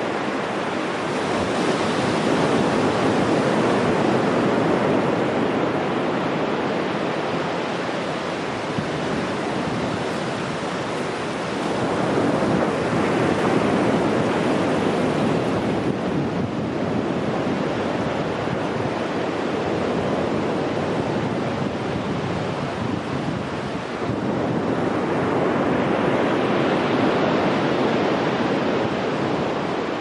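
Ocean surf breaking on a sandy beach: a continuous wash of waves that swells louder as a new wave breaks about every twelve seconds.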